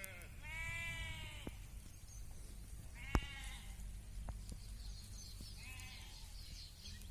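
Sheep bleating: three separate calls a few seconds apart, over a steady low rumble, with one sharp knock about three seconds in.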